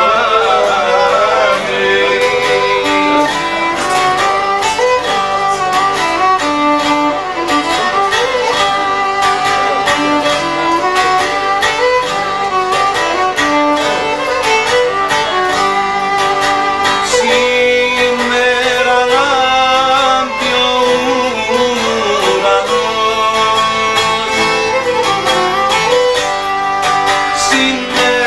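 Violin playing a continuous, ornamented folk melody over a plucked string accompaniment.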